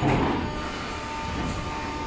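Metro car standing at a station platform: the steady hum of the car, with a thin steady whine setting in about half a second in.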